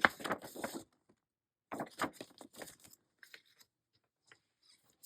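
Paper album inserts being handled and shuffled: rustling and crinkling in two short bursts, then a few faint light taps.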